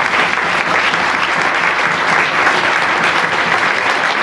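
Audience applauding steadily: many hands clapping at once, the thanks that greets the end of a talk.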